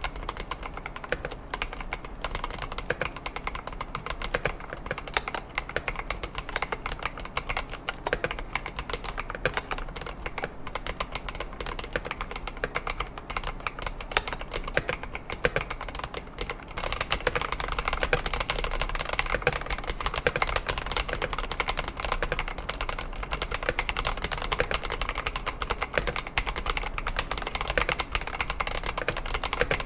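Rapid, continuous typing on an Epomaker TH80-X mechanical keyboard fitted with Epomaker Flamingo linear switches: a dense stream of keystroke clacks, getting a little louder a bit past halfway.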